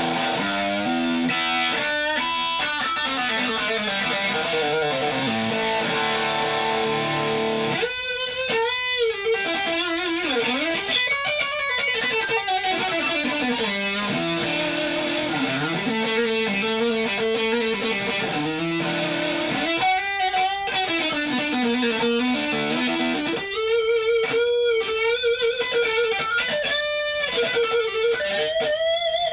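Electric guitar played through a 1990s Tech 21 XXL distortion pedal into a small bench amp: distorted sustained notes, several bent up and down in pitch. The signal never drops out, so the pedal's intermittent fault is not showing.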